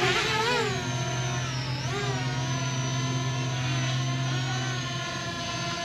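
Fimi X8 Mini quadcopter's propellers whining as it hovers low. The pitch wobbles near the start and again about two seconds in as the motors adjust, then holds steady.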